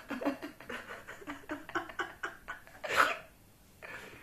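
A person's quick breathy pulses, about five a second, then one sharp burst of breath about three seconds in: an attempt at a sneeze brought on by paper tickling the inside of the nose.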